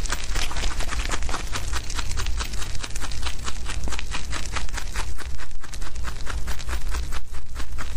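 Young rabbits chewing fresh grass blades close up: a fast, dense run of crisp crunching clicks, several a second, over a low steady hum.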